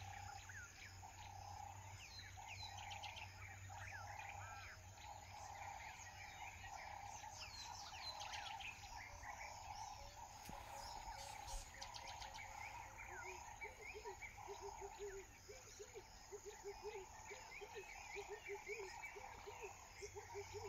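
Outdoor wild ambience: small birds chirping and trilling over a steady, pulsing background chorus. From about two-thirds of the way through, a run of short low calls repeats a few times a second.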